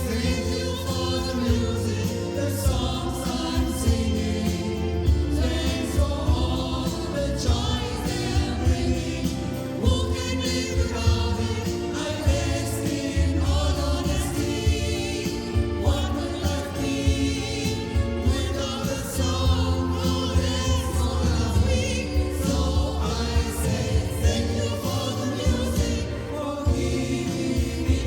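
An amateur choir singing a song together, many voices in harmony.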